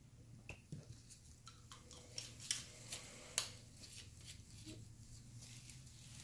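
Faint clicks and taps of blue plastic screw caps and test tubes being handled and set down on a granite countertop, with a few sharper ticks between about two and three and a half seconds in.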